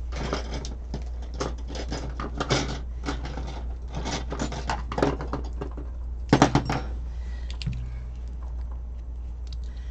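Thin plastic packaging crinkling and rustling as a roll of washi tape is worked out of its plastic sleeve: dense, irregular crackles for about five seconds, one louder crinkle about six and a half seconds in, then only a few small rustles. A steady low hum runs underneath.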